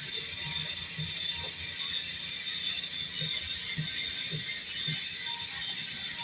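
GUB bicycle rear hub's freehub freewheeling as the wheel spins, its pawls ratcheting in a fast, steady buzz of clicks. The wheel spins long and smooth, a sign of freely running hub bearings.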